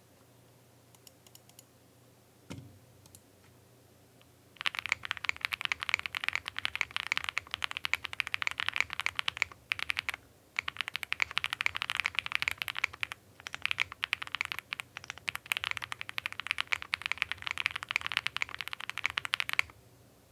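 Fast typing on a Zoom 65 V2 mechanical keyboard with Wuque Studio Red switches on a polycarbonate plate with full foams, still wearing its PBT keycaps. A few light clicks come first, then rapid continuous keystrokes start about four seconds in, pause briefly twice, and stop shortly before the end.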